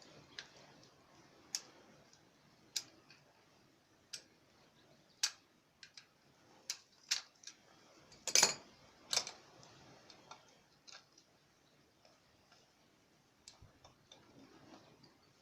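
Irregular sharp clicks and knocks, about a dozen, from tools and metal parts being handled during a tiller repair; the loudest comes about eight and a half seconds in.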